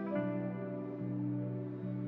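Soft background music: slow, sustained instrumental notes and chords changing about once a second.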